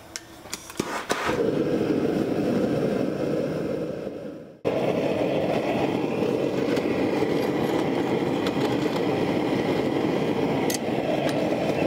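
Gas forge burners running with a steady roar, with a few metal clinks of tongs and the steel hatchet head in the first second. The roar drops out for a moment about halfway through and comes straight back.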